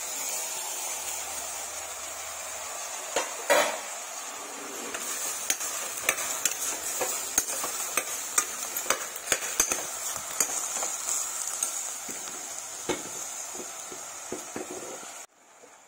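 Onion, brinjal and chopped tomatoes frying in a steel pressure cooker, with a steady sizzle. A steel ladle stirs them, clinking and scraping against the pot again and again. The sizzle cuts off suddenly near the end.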